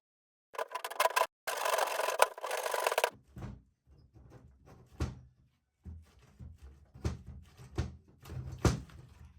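Rough scraping and rubbing for a couple of seconds, then scattered light knocks and thuds, as from hand work on wood and building materials.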